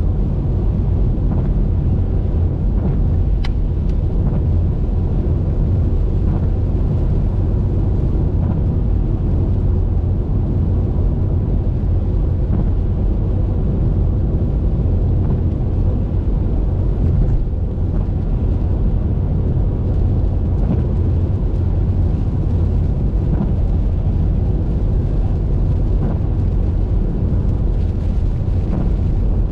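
Steady low rumble of a car driving at highway speed: road and wind noise. A few faint ticks sound over it, one sharper tick about three and a half seconds in.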